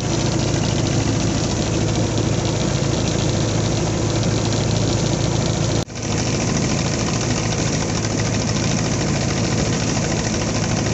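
A boat engine running steadily at a constant speed, with a brief drop-out about six seconds in.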